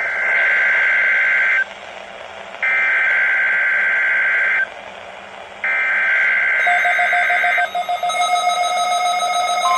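Emergency Alert System SAME header data tones from a NOAA Weather Radio broadcast: three bursts of warbling digital buzz, each about two seconds long with a pause of about a second between them. About seven seconds in, a second steady electronic alarm of several tones joins, and just before the end a steady single-pitch alert tone starts.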